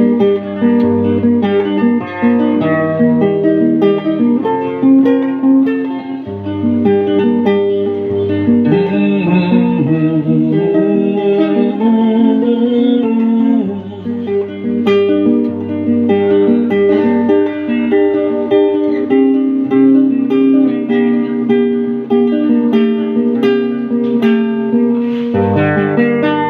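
Guitar playing the instrumental outro of a Filipino ballad: plucked notes over changing chords, with no singing.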